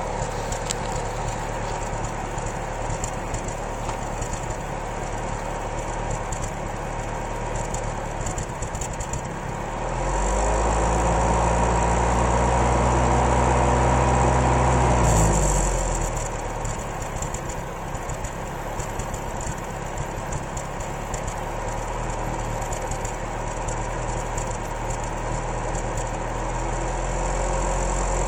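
1993 Isuzu Amigo's 2.3-litre four-cylinder engine idling with a misfire, the sign of a lean condition. About ten seconds in it is revved up, held at higher speed for about five seconds, then drops back to a rough idle.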